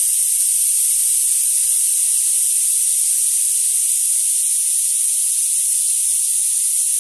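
HVLP spray gun blowing air only, its trigger held at the first detent: a steady hiss of compressed air from the air cap while the line pressure is set at the regulator.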